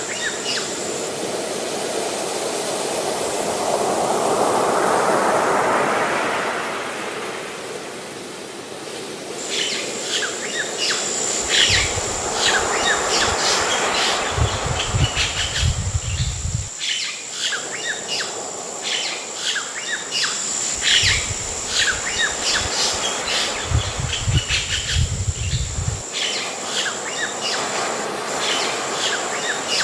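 Sea waves washing in with a slow swell, then many birds chirping over a steady high insect buzz. Two long low rumbles come and go under them.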